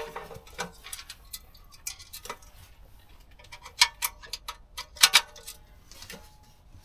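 Small sheet-steel tent wood stove being set up: a series of sharp metal clicks and knocks as its folding legs are fitted and the stove is handled, the loudest a pair of clanks about five seconds in.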